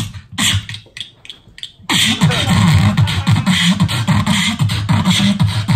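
Human beatboxing into a microphone, amplified over a PA: separate sharp hits with short gaps at first, then about two seconds in a dense, unbroken run of beats over a deep bass.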